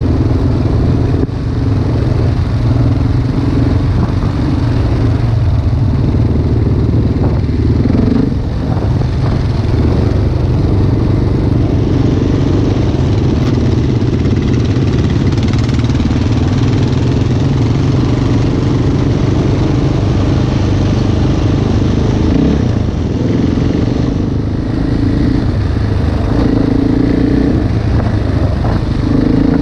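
Dirt bike engine running under way on a ride, its note rising and falling as the throttle is worked, with a brief dip about eight seconds in. Heard through a GoPro carried on the ride.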